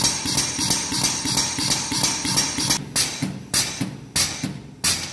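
Air-driven hydraulic pump stroking: rhythmic hissing puffs, about four a second, that slow to about one and a half a second from about three seconds in, as the pump works against the rising pressure.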